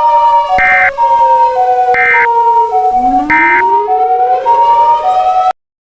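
Emergency sirens: a two-note hi-lo siren switching about every half second, over a wail that slowly falls and then rises, with short horn-like blasts about every second and a half. It all cuts off suddenly near the end.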